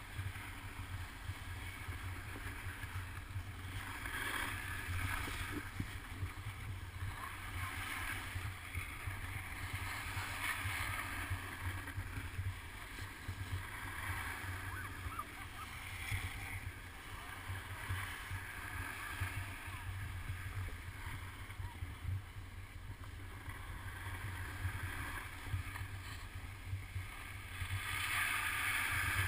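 Wind buffeting an action camera's microphone while skiing downhill, a steady low rumble, with the hiss and scrape of skis on packed snow swelling at intervals through the turns.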